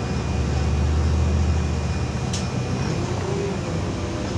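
Low engine rumble of a LiAZ-5292 city bus heard inside the passenger cabin, swelling about a second in and then easing. A single sharp click comes a little past the middle.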